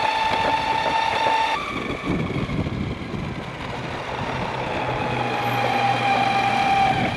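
Ecomobl M24 AWD electric skateboard riding along: the drive motors give a steady high whine that cuts out about one and a half seconds in and returns a few seconds later, over continuous wheel and wind rumble.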